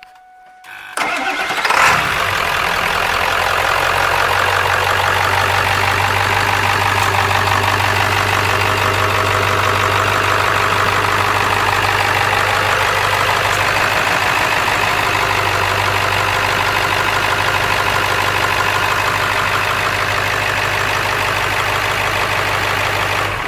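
Ford 7.3L Powerstroke turbo-diesel V8 started: a brief crank about a second in, then it catches and idles steadily. The sound falls away at the very end.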